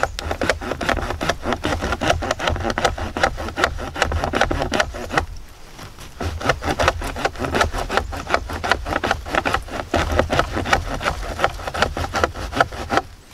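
Saw-toothed spine of a Reapr Tac Bowie knife sawing back and forth through a dead wooden stick in quick rasping strokes, with a short pause about five seconds in before the sawing resumes.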